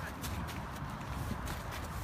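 Faint irregular knocks and shuffling, like footsteps or handling, over a steady low rumble.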